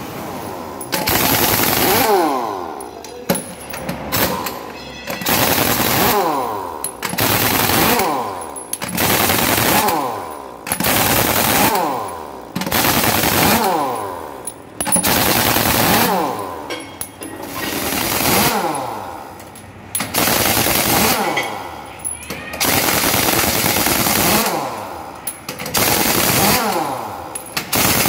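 Pneumatic impact wrench rattling on a truck's wheel nuts in repeated bursts, about one every two seconds, each burst sliding down in pitch as it runs.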